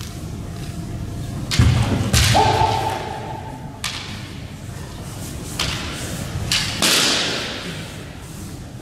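Kendo bout: bamboo shinai strikes and clashes with stamping footwork on a sports hall floor, in a cluster about a second and a half in and again around six to seven seconds. Between the two clusters comes a held shout, the fencers' kiai.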